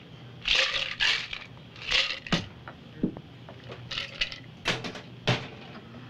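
Metal cocktail shaker being poured out and handled at a bar counter: short, irregular bursts of ice rattling and liquid splashing, with a couple of sharp knocks a little past the middle.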